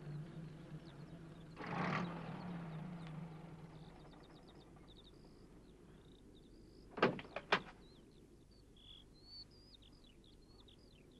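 Small post van's engine running low as it pulls up, with a swell of noise about two seconds in before it dies away. Birds chirp faintly, and about seven seconds in two sharp clicks come as the van door is opened.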